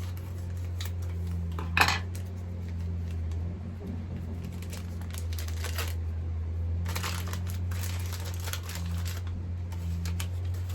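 A small gift package being unwrapped by hand: wrapping and packaging rustle and crinkle in stretches, with one sharp clack about two seconds in as something hard is handled.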